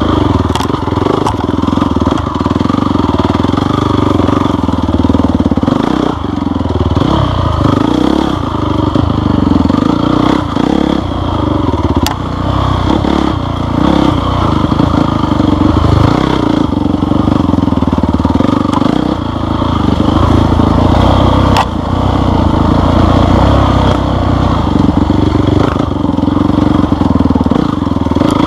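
Off-road vehicle engine running steadily under load on a trail, its pitch and level swelling slightly, with a few sharp clacks along the way.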